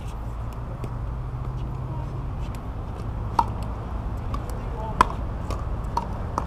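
Pickleball paddles hitting the plastic ball: a scatter of sharp pops, the loudest about three and a half and five seconds in, with fainter ones from other courts, over a steady low rumble.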